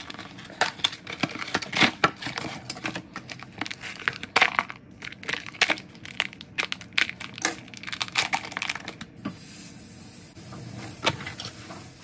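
Cardboard food box being cut and torn open with a kitchen knife, its packaging crinkling and crackling in a quick irregular run of sharp snaps. Near the end the snapping gives way to a steady hiss.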